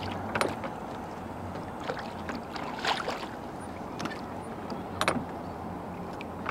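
Small boat on a pond: water noise against the hull with a few sharp knocks, about half a second, three seconds and five seconds in, over a steady low hum.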